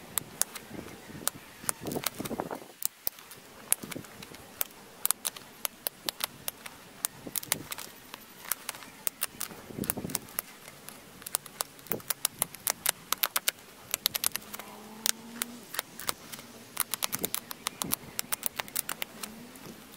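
Flint arrowhead being pressure-flaked with a hand-held pointed flaker against a leather pad: a long, irregular run of sharp little clicks as small flakes snap off the edge, some coming in quick bursts of several.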